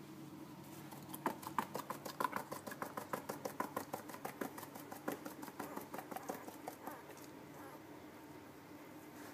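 Ten-day-old husky puppies making a quick run of tiny mouth clicks and squeaks, several a second, starting about a second in and fading out at about seven seconds.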